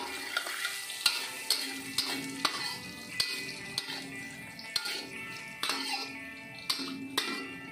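A metal ladle scraping and clanking against a stainless steel wok as aromatics are stir-fried in hot oil, with repeated clanks about two a second over a frying sizzle.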